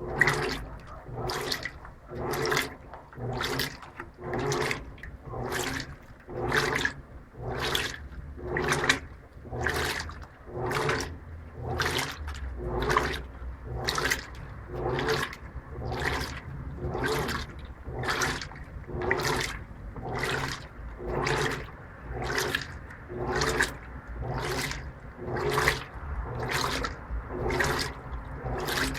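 Electrolux LTP15 top-load washing machine agitating a load of laundry in water: a regular back-and-forth sloshing swish, a little more than once a second, over the steady low hum of the motor. This is the normal agitation profile, without turbo agitation.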